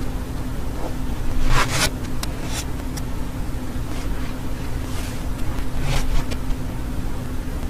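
A steady low hum runs throughout. Over it come a few short scratchy rustles, the loudest about one and a half seconds in and another near six seconds, with a handful of soft clicks between them.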